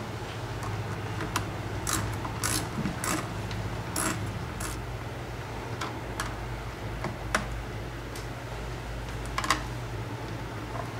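Small clicks and light knocks of plastic and metal parts as a chainsaw carburetor and its throttle linkage are handled and seated back in place, with a cluster of clicks in the first half and a sharp pair near the end, over a steady low hum.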